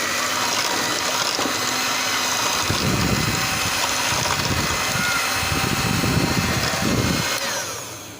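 Electric mixer running steadily, its beaters whisking egg into a sugar-and-oil cake batter, with uneven low churning from the batter in the middle; the motor winds down near the end.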